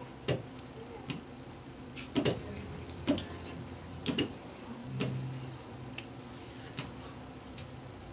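Room noise of a seated audience and children on a stage: scattered knocks and clicks, the loudest a cluster about two to three seconds in, with faint murmuring.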